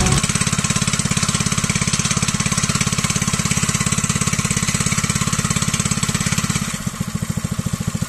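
Gasoline plate compactor's small single-cylinder engine running at working speed. About seven seconds in it is throttled back to a slower, quieter idle at the end of the work, the idle run it needs for a minute before being switched off.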